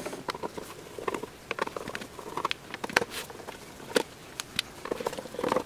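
Hand screwdriver working screws loose from the metal case of a switch-mode power supply: scattered small clicks and scrapes of metal on metal at an irregular pace.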